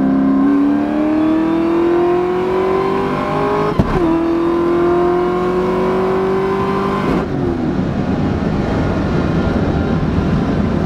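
Supercharged 4.6-liter V8 of a 2003 Mustang Cobra (Terminator), a car that makes about 700 wheel horsepower on E85, accelerating hard, heard from inside the cabin. Its pitch climbs steadily, drops with a quick shift about four seconds in, and climbs again. A little after seven seconds in it falls away to a rougher, steadier drone.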